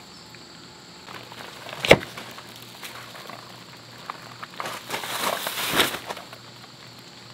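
One sharp, heavy thump about two seconds in, then a few seconds of rustling and scraping as gear is handled. A steady insect buzz runs underneath.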